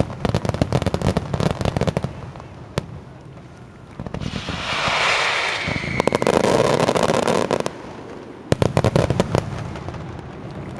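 Fireworks display: dense, rapid crackling bangs that ease off about two seconds in, then a hissing rush followed by another stretch of thick crackling, and a cluster of sharp bangs near the end.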